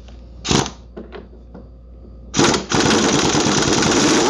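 Pneumatic impact wrench undoing the nut on a push mower's rear wheel: a short burst about half a second in, then about two seconds of rapid hammering near the end, with a brief pitched whine as it stops.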